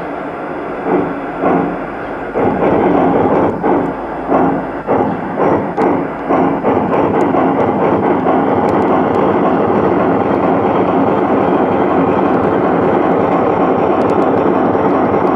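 Large-scale garden-railway train getting under way, heard from a camera car riding in it: separate beats come faster over the first six seconds, then merge into a steady rolling noise of wheels on track.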